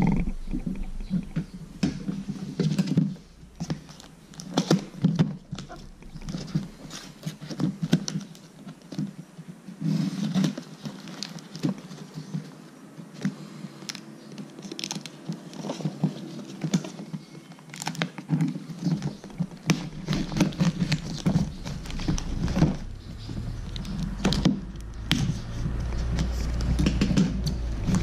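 A cardboard parcel being cut open with scissors: many short snips, scrapes and clicks as the blades work through packing tape and cardboard, with the box being handled and shifted on the table. Handling noise grows heavier in the last few seconds as the box is pulled open by hand.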